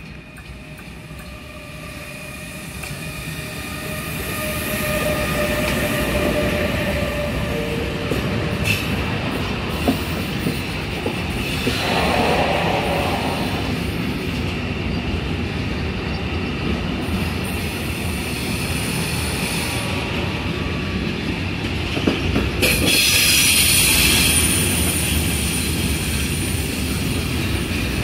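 Intermodal freight train hauled by a class 186 electric locomotive rolling past. The wagon wheels make a steady rumble on the rails with thin squealing tones, growing louder over the first few seconds as the train nears. The wheels give a louder, hissing screech near the end.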